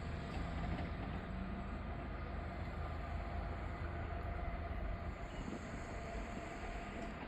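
Norfolk Southern freight train rolling past: a steady, continuous rumble of the train on the rails, with a faint steady tone above it.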